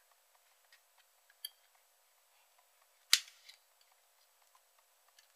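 Faint handling ticks and a small ringing click, then one loud, sharp plastic snap about three seconds in as a snap-fit catch on the electric shaver's plastic housing is pried free.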